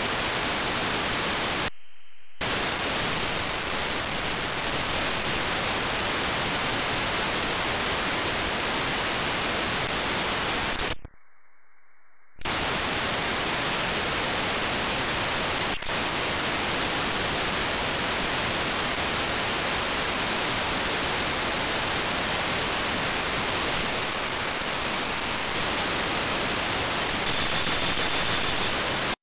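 Steady radio static: the hiss of a software-defined radio demodulating wideband FM while tuned across frequencies with no receivable station. The hiss dips briefly twice, once about two seconds in and again for a second or so around the middle.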